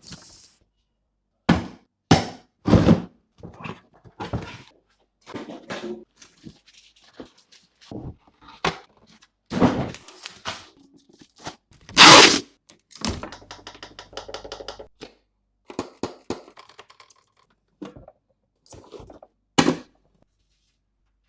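Unboxing handling sounds: a series of separate thunks and knocks as the robot vacuum's box and parts are handled and set down, with a rapid ripping rattle for about two seconds partway through.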